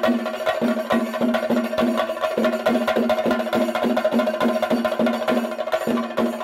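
A group of chenda, Kerala's cylindrical stick-beaten drums, playing together in a fast, dense stream of strokes, with a steady ringing tone beneath the beats.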